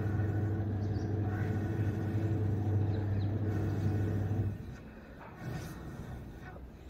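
Long blows through a metal blowpipe (phukni) into the wood fire of a clay chulha, giving a steady low drone that stops about four and a half seconds in as she pauses for breath.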